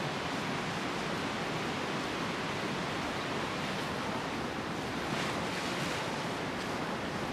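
Steady, even outdoor rushing noise, with faint crackly rustling of kale leaves being laid on a pile about five to six seconds in.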